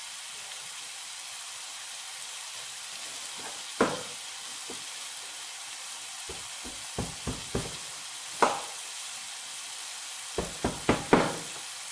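Duck pieces in spice paste sizzling steadily in a wok over a gas flame. Sharp pops and clicks cut through a few times, with a quick run of them near the end.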